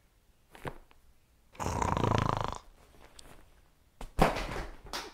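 A man's low, buzzing groan of frustration, lasting about a second; a shorter burst of breathy noise near the end.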